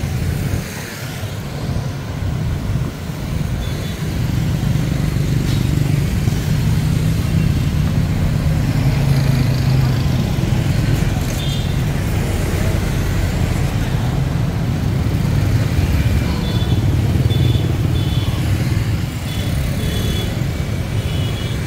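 Steady road traffic of motorbikes and cars going by on a busy city street.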